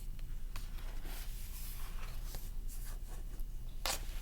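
Faint handling noise, light rustles and small clicks with one sharper click near the end, over a low steady electrical hum in a small room.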